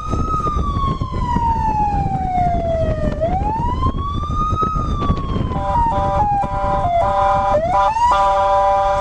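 A siren wailing, its pitch rising and falling slowly, over the low rumble of a moving car. About five and a half seconds in, it gives way to several steady tones sounding together that change pitch in steps.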